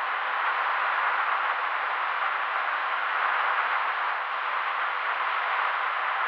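Steady rushing noise of a helicopter in flight, unchanging throughout, with a faint steady tone underneath and no separate rotor beat heard.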